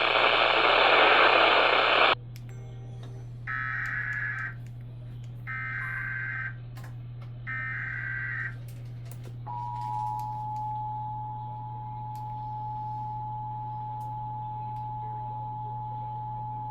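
Emergency Alert System activation for a tornado warning. A loud hiss cuts off about two seconds in. Then come the three short screeching bursts of the SAME digital header, about a second apart, and about halfway through the steady two-tone EAS attention signal begins. A low hum runs underneath throughout.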